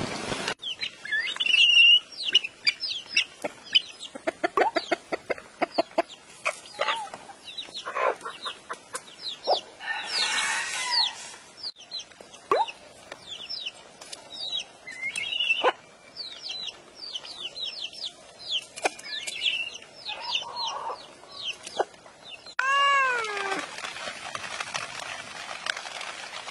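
Ducklings and chicks peeping in quick, high chirps, with a louder, harsher call about ten seconds in. Near the end a cat meows once, its pitch rising and falling, and rain patters steadily.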